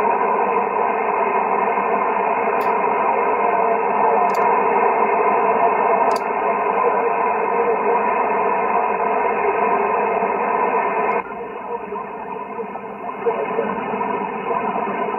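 HF transceiver's speaker hissing with 40-metre lower-sideband band static, with faint steady tones in the noise, cut off sharply above the receive filter's passband of about 2.7 kHz. About eleven seconds in, the static drops and stays lower as the radio's noise reduction (NR1) is switched on. Three faint clicks come in the first half.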